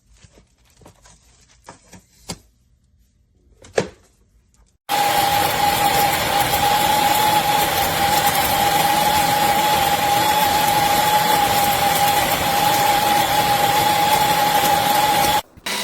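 Ollygrin electric conical burr coffee grinder running: a few light clicks, then the motor starts about five seconds in with a steady whine and stops abruptly about ten seconds later.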